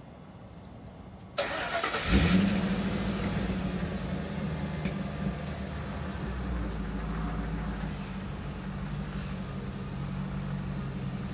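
Pickup truck engine cranking and catching about a second and a half in, then running steadily as the truck begins to pull away.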